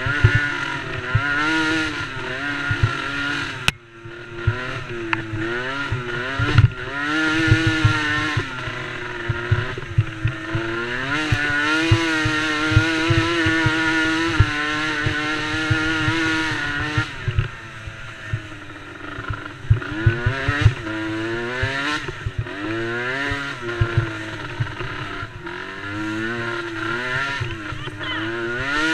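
Small youth ATV engine (DRR DRX90) revving up and dropping back over and over as it accelerates and slows around a race track, with irregular low thumping underneath.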